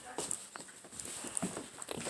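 Faint scattered clicks and taps, a few short knocks spread through the two seconds.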